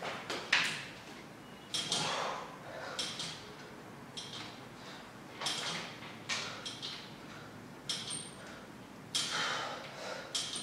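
Man doing pull-ups on a wall-mounted pull-up bar: a sharp breath with each repetition, about one a second, with short squeaks from the bar.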